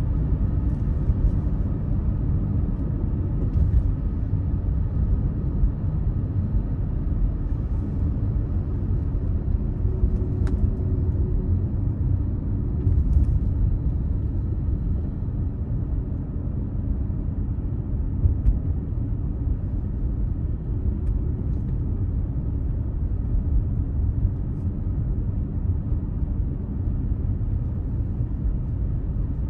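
Car road noise heard from inside the cabin: a steady low rumble of engine and tyres while driving.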